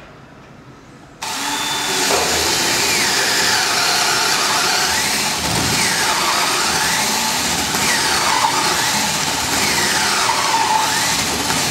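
Cordless drill with an auger bit boring into the edge of a timber post, starting suddenly about a second in and running on steadily. The motor pitch dips and recovers several times as the bit takes load in the wood.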